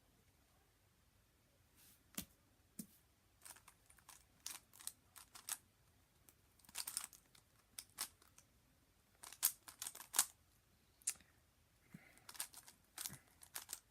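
Zcube M plastic speed cube being turned fast in a solve: irregular runs of sharp clicks and clacks as the layers snap round, starting about two seconds in.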